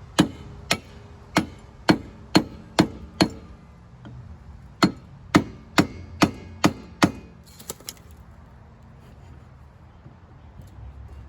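Hammer blows driving a replacement rear hub onto the splined drive axle of an EZGO ST350 golf cart. The sharp strikes come in two runs, about seven in the first three seconds and six more after a short pause, ending about seven seconds in.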